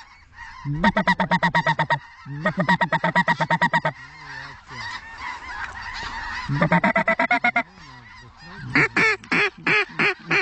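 Goose honking in rapid trains: bursts of short, evenly spaced honks, about four of them, with looser rising-and-falling calls near the end and a fainter chatter of geese between bursts.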